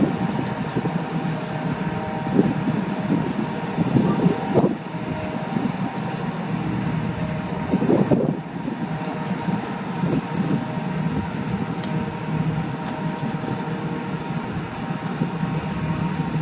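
A steady machinery hum with a few faint steady tones and wind buffeting the microphone, surging twice, about a quarter and halfway in.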